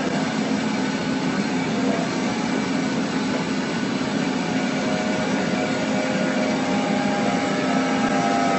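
Excavator diesel engine running steadily under load while its hydraulic auger drill turns and bores into the soil; a constant low drone.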